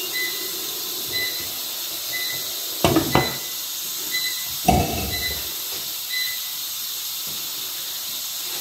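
Pressure cooker venting steam in a steady hiss, its heat just switched off so the pressure can drop before the lid is opened. A couple of short knocks come about three and about five seconds in.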